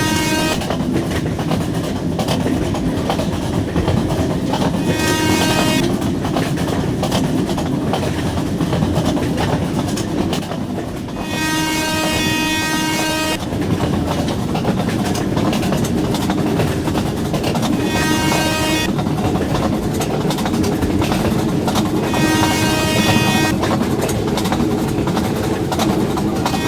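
Train running at speed with a steady rumble of wheels on rail, its horn sounding about five times in blasts of one to two seconds.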